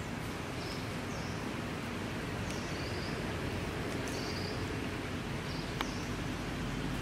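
Forest ambience: a steady hiss of outdoor background noise with short, high, falling chirps recurring irregularly about once a second, and a single sharp click about six seconds in.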